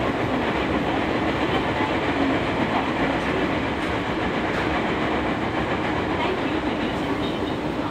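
Steady running noise inside a Toei 10-000 series subway car: a dense rumble of wheels on rail with a faint steady hum underneath.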